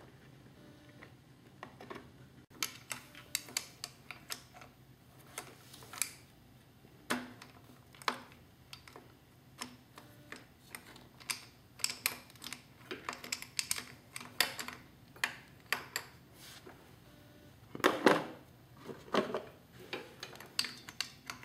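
Irregular sharp metal clicks and taps from a small deep socket and hand tools working against a two-stroke engine's piston to push out the wrist pin, with a louder cluster of knocks about three-quarters of the way through.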